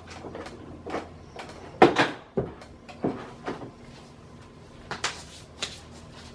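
Freshly laid-up fiberglass mold being flexed and pried apart by hand at its flange: a string of sharp cracks and knocks, the loudest a pair about two seconds in, as the mold comes away.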